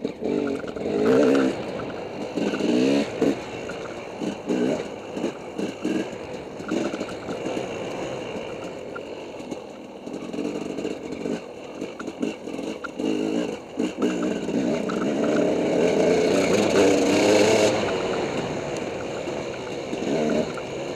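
Dirt bike engine revving up and down as it is ridden over a rough trail, rising to its loudest for a long pull near the end, with frequent knocks and rattles from bumps along the way.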